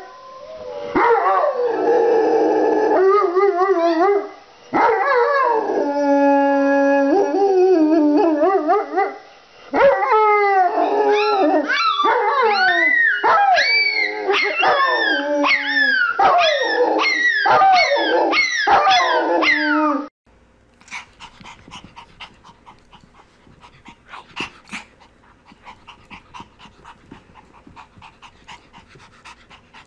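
A Rottweiler and a Pomeranian howling together: long held howls that slide up and down in pitch, then a quick run of short rising-and-falling howls. The howling cuts off suddenly about twenty seconds in, leaving only faint scuffling.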